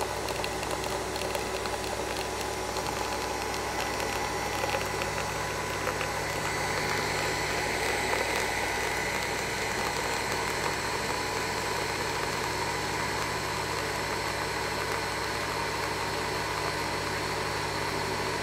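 Nespresso Vertuo coffee machine brewing: a steady mechanical whir as it spins the capsule centrifugally.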